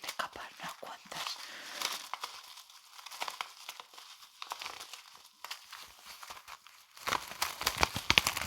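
Brushes swept against a surface close to the microphone, giving a dense crackling, scratchy rustle that grows louder and fuller about seven seconds in.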